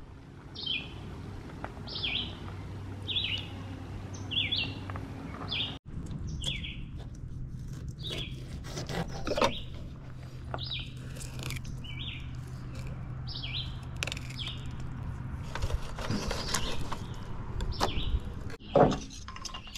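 A songbird repeating a short, falling chirp about once a second, over a steady low hum, with a few handling knocks, the loudest near the end.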